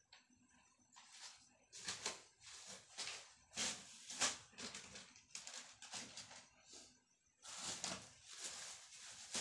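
Faint, irregular rustling and scraping as kitchen things are handled, a run of short noisy bursts with a brief pause about seven seconds in.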